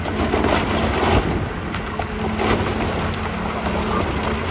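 Building demolition: heavy machinery running with a steady engine hum while rubble crashes and rumbles down, with a couple of louder crashes.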